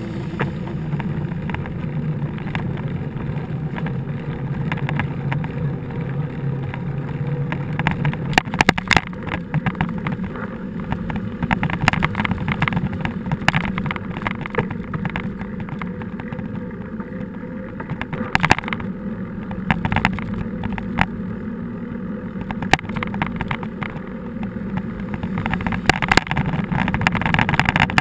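Mountain bike ride heard from a camera mounted on the handlebars: a steady low rumble of tyres and wind, with frequent clicks and rattles of the bike and camera mount jolting over rough ground.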